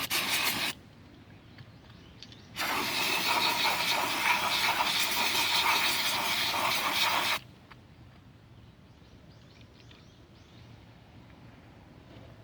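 Aerosol can of brake cleaner spraying: a short burst at the start, then a steady hiss lasting about five seconds that cuts off suddenly.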